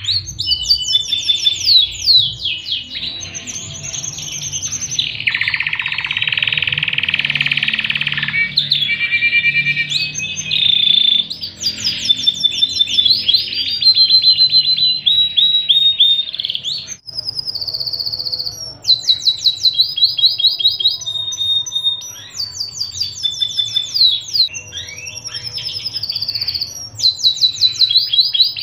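Domestic canary singing a long, varied song: fast repeated chirps and trills and rapid runs of quick falling notes, with a brief pause about two-thirds of the way through.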